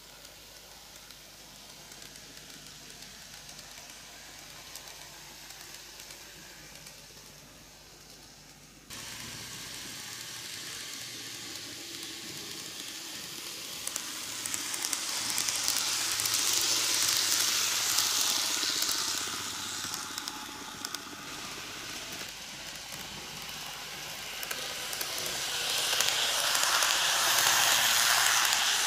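N-gauge model electric train running on curved track: a steady hiss of wheels and motor with fine clicking. It gets louder twice as the train comes close past, the second time near the end.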